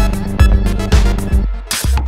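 Electronic background music with a steady drum beat and bass; near the end the beat breaks off for a short swish.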